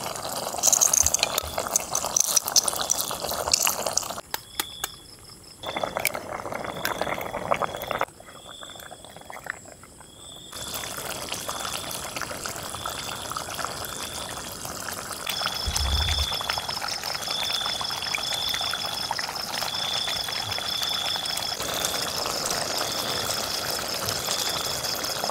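Frog pieces in chili sauce simmering in a frying pan, bubbling and sizzling steadily, with sauce squeezed in from a bottle near the start. The sound drops away briefly twice.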